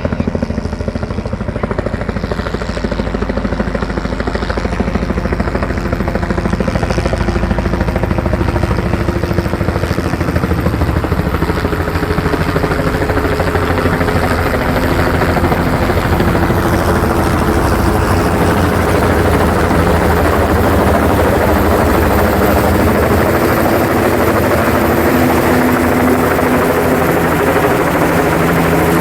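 Helicopter rotor chop, a rapid steady beat with engine drone, slowly growing louder and brighter as the helicopter comes in to land.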